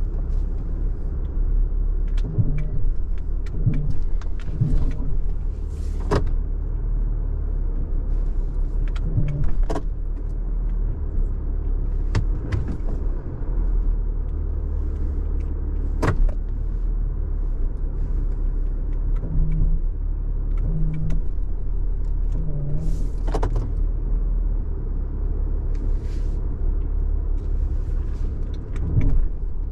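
A vehicle engine running steadily with a low rumble, with scattered sharp clicks and knocks on top.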